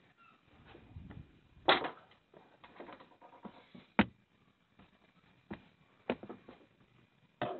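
Handling noise: a few sharp knocks and clicks with rustling between them, the two loudest knocks just under two seconds in and about four seconds in.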